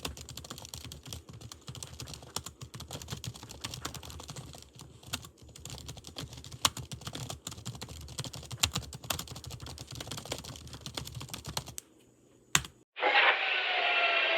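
Rapid typing on a computer keyboard: a dense run of key clicks that stops about twelve seconds in. After a brief pause and a single click, a louder, steady noisy sound starts near the end.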